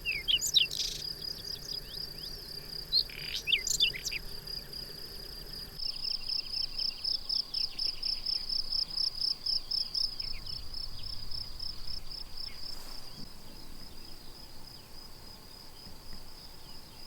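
Crickets trilling steadily at a high pitch, with a few short bird chirps in the first four seconds. From about six seconds in, a nearer cricket's song pulses rapidly, about four or five pulses a second, for several seconds before easing back into the steady trill.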